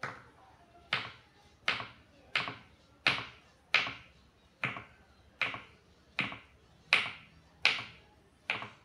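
Kitchen knife chopping through a block of tempeh onto a wooden cutting board: twelve sharp, evenly paced chops, about one every three-quarters of a second.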